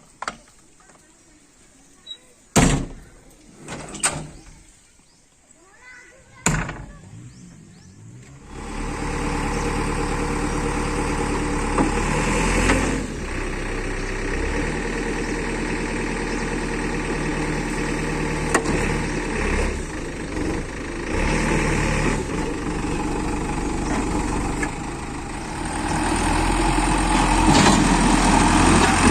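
A few sharp knocks, then about a third of the way in a diesel engine of a backhoe loader or tractor starts and runs steadily, growing louder near the end.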